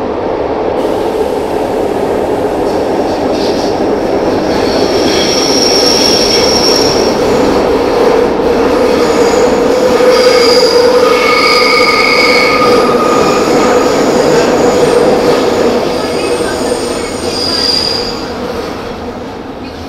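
Milan Metro Line 2 'Tradizionali' train running: a dense rumble with a steady hum, growing louder over the first ten seconds or so and easing off after about sixteen. From about five seconds in, the wheels squeal several times in high, drawn-out tones.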